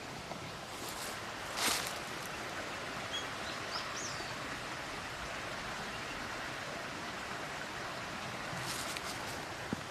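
Steady outdoor ambience with an even rushing hiss, a few short high chirps about three to four seconds in, and a brief louder swish near the start.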